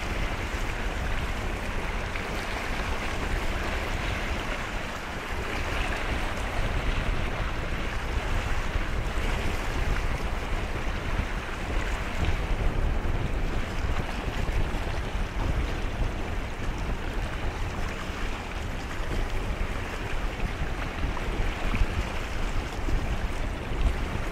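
Steady wind buffeting the microphone over a constant wash of sea water, a low rumble with a hiss above it.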